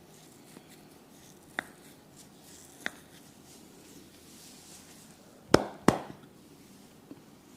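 Massage strokes: two faint sharp clicks, then two loud sharp cracks about a third of a second apart.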